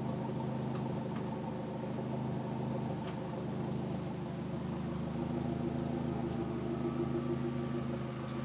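Volkswagen Golf engine idling steadily through an aftermarket exhaust with headers, heard close to the car with the engine note holding level and shifting slightly about halfway through.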